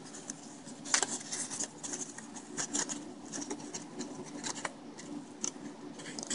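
Clear plastic blister pack handled and flexed in the fingers: irregular crinkles and sharp plastic clicks, a little louder about a second in.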